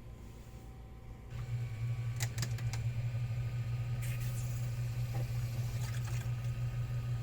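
Reverse osmosis system's boost pump switching on about a second in and running with a steady low hum, with a few light clicks over it.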